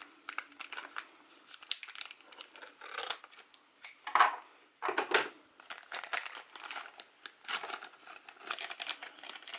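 Packaging being cut open and handled, with irregular crinkling, rustling and tearing sounds.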